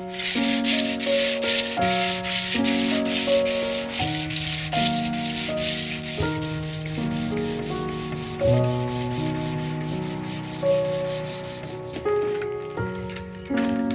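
Hand sanding block rubbing over the varnished wooden floorboard of a small sailboat, in quick, even back-and-forth strokes that stop about twelve seconds in: sanding out scratches in the finish. Background music with sustained notes plays throughout.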